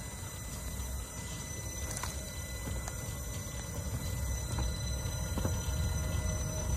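Small two-foot-gauge electric box motor car rolling along the track toward and past, its steel wheels giving a low rumble that grows louder as it nears, with a few scattered clicks. A steady whine comes in near the end as the newly rebuilt AC-motored truck passes close.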